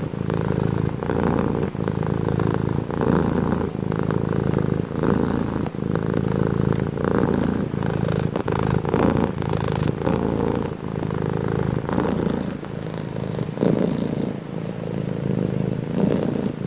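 Domestic cat purring close up, a steady low rumble that swells and eases with each breath, a little under once a second.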